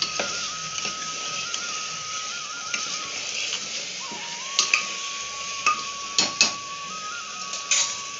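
A spoon stirring thick mutton masala in a pressure cooker pot, with several sharp clinks against the pot's metal side. The clinks come mostly in the second half. A thin, sustained whistle-like melody with small trills plays underneath as background music.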